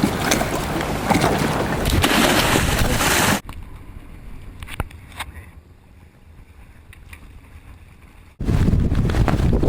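Heavy wind noise buffeting the microphone. It cuts abruptly to a much quieter stretch with a few sharp clicks about three and a half seconds in, and returns just as suddenly near the end.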